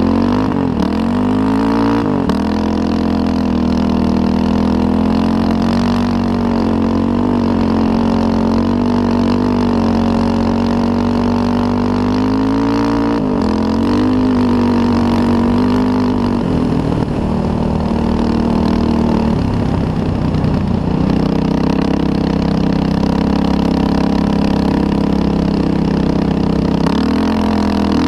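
Engine of a small ridden off-road vehicle running steadily at speed. Its pitch dips and recovers several times as the throttle is eased and reopened, with a rougher stretch a little past halfway.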